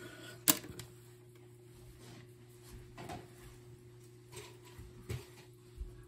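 Handling noise: one sharp click about half a second in, then a few faint taps and knocks as a smoke alarm's wire harness is laid on a desk, over a steady low hum.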